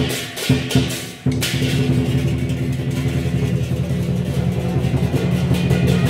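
Lion dance percussion: Chinese drum, cymbals and gong. A few separate strikes, then from about a second and a half in a fast, continuous drum roll under crashing cymbals and a ringing gong.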